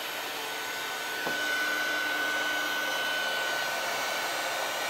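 Embossing heat tool running: a steady rush of blown air with a steady high whine, heating silver embossing powder on stamped cardstock until it melts. It gets a little louder about a second in.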